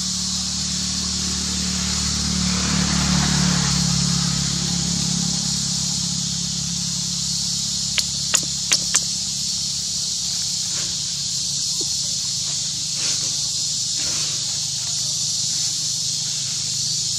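Steady high-pitched insect drone of a forest, with a low hum underneath. About eight seconds in come four sharp clicks in quick succession.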